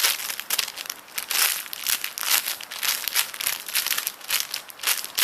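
Crinkling and crackling of plastic handled close to the microphone, many quick irregular crackles, as a small squishy toy in its wrapper is turned over in the hands. The crackling stops abruptly near the end.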